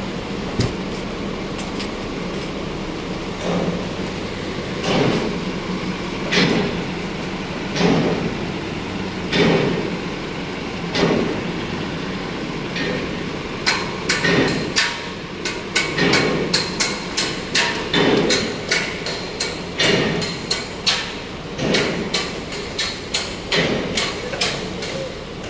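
Repeated hammer strikes, at first about one every second and a half, then quickening to about two a second for the second half, over a steady background hum.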